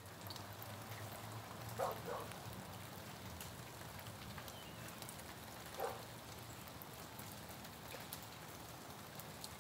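Meltwater and bits of ice dripping and pattering from ice-coated tree branches in a rapid thaw, a steady light patter that sounds like rain. A few louder hits stand out about two seconds in and near six seconds.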